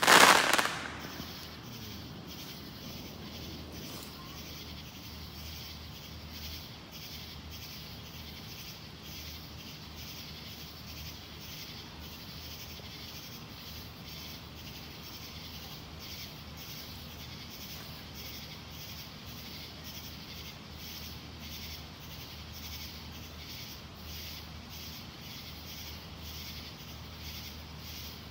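Aerial firework shell bursting into crackling stars at the very start, fading within about two seconds. Then a faint steady night background with a soft regular pulse about twice a second and a low hum.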